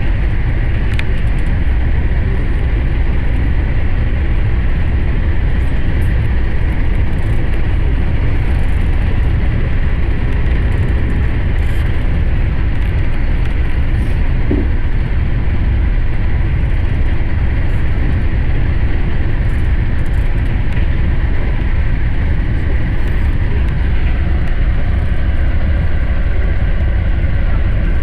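Running noise of a JR West Special Rapid electric train at speed, heard from inside the car: a steady, loud, low rumble that does not change.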